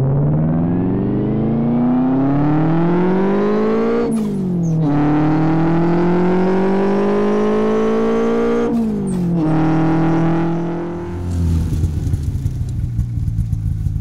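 Snowmobile engine accelerating: its pitch climbs steadily twice and drops sharply each time. It then runs steadily at a lower pitch before turning into a choppy, uneven low-speed sound near the end.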